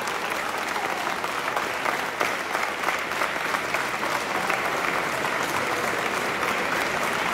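A packed crowd clapping steadily and continuously, with voices calling out over the applause.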